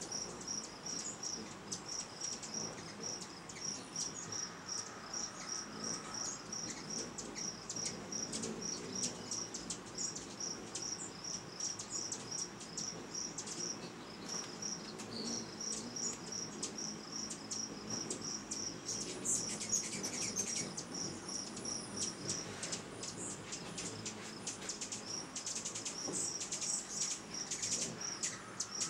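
A chirping insect gives short, high chirps at a very regular pace of about three a second, breaking off briefly now and then. Irregular high ticks and twitters sound above it.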